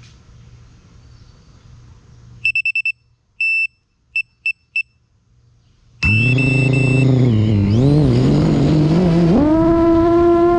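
FPV quadcopter: a string of short, identical high electronic beeps (four quick, one longer, three quick), then the motors spin up with a loud whining hum that wavers in pitch and steps up to a higher, steady pitch near the end.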